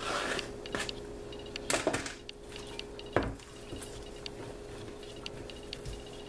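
A plastic cutting board knocks against a glass baking dish as chopped onions and green peppers are scraped off it, the loudest knock about three seconds in. After that come the soft sounds of hands working raw turkey wings in the dish, with faint light clicks.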